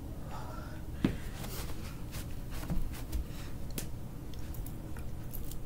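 A person moving about and getting down to the floor: one sharp thump about a second in, a softer knock a little later, and scattered short rustles and clicks over a steady low hum.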